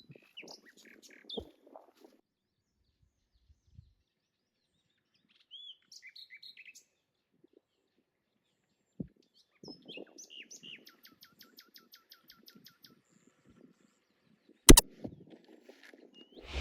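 Wild birds calling with short chirps and whistles, with a rapid trill of repeated notes about ten seconds in, over low rustling. A single loud, sharp click or knock comes near the end.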